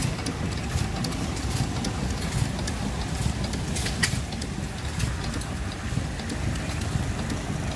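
Horizontal single-cylinder stationary gas engine running steadily, a low, even beat with a few irregular sharp clicks.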